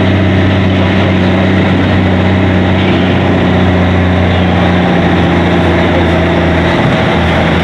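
Heavy dump truck's diesel engine idling with a steady, even hum.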